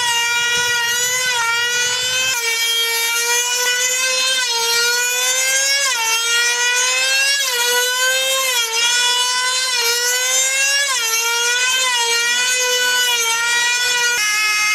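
High-pitched whine of small two-stroke model engines on control-line combat airplanes circling on their lines, the pitch climbing and then dropping sharply about every second and a half as each plane passes on its lap. Near the end the pitch goes steady.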